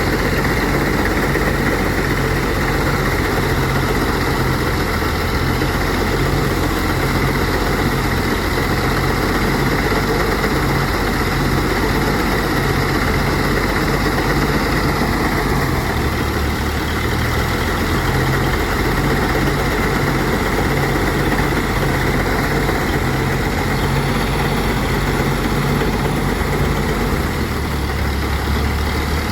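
Engine-driven rice threshing machine running steadily, its low engine note shifting slightly about halfway through and again near the end.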